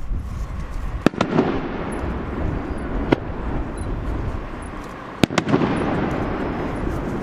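Fireworks display: a run of sharp bangs from shells bursting, about a second in, again near three seconds and a close pair a little after five seconds, with a continuous low rumble between them.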